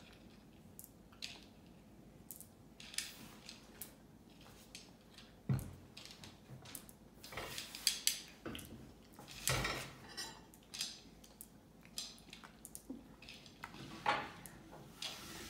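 M&M candies clicking against a plate as they are picked through by hand, in scattered, irregular clicks with a few louder knocks.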